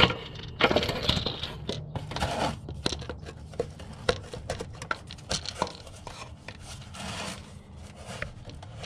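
Handling noise from rigging a hand-operated gear oil pump and its plastic hose tip at a transaxle fill hole: irregular plastic rustling and crinkling with many small clicks and knocks, busiest in the first few seconds.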